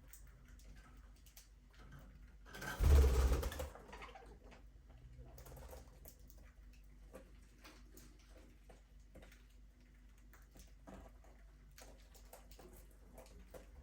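Budgerigars in an aviary making many small, irregular clicks and taps, the sound of beaks pecking and scratching at seed and cage, with one louder thump about three seconds in.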